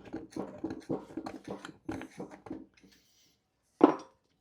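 Quick small clicks and rustles of hands handling the scooter hub motor's parts, then a pause and one short, louder knock near the end.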